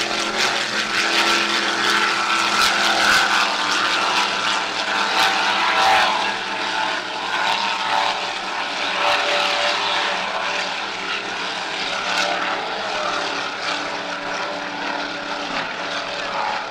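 Offshore racing powerboats' engines droning at speed as the boats run past, louder in the first several seconds and easing off toward the end.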